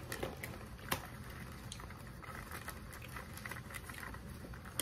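Skinny Pop sea salt popcorn being chewed: faint, irregular soft crunches and clicks.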